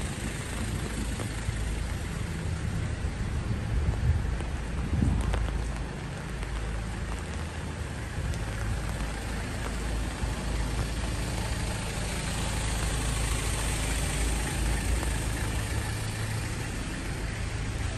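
Steady city street ambience: an even hiss with a low rumble of traffic, a little louder around four to five seconds in.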